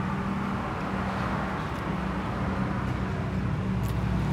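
Steady low mechanical hum with background road-traffic noise.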